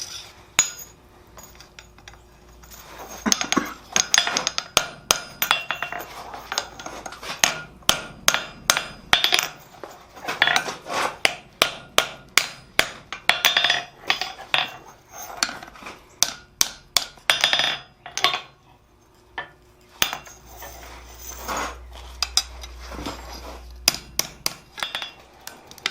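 Hammer blows on steel tongs at the anvil, in runs of sharp ringing strikes about two a second with short pauses between runs: forging the rivet and fitting the tong jaws to the tool.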